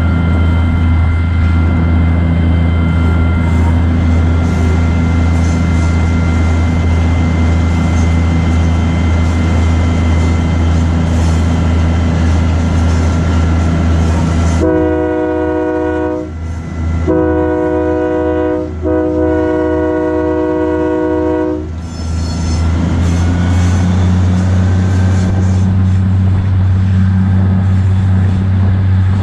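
Diesel engine of a GE 80-ton switcher locomotive running steadily under way, with a thin steady whine over it. About halfway through, the locomotive's air horn sounds three blasts, the last about twice as long as the first two.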